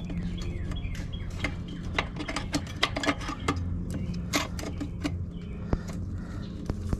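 Irregular small metallic clicks and taps from motorcycle rear disc brake parts and tools being handled as the caliper and pads are fitted, over a steady low hum.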